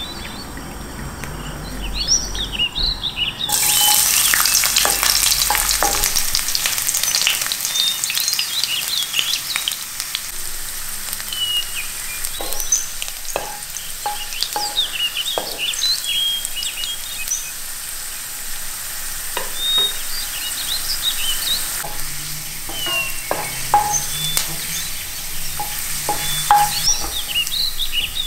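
Sliced garlic frying in hot oil in a pan: a steady sizzle that starts suddenly a few seconds in, with short knocks of a wooden spoon stirring it now and then.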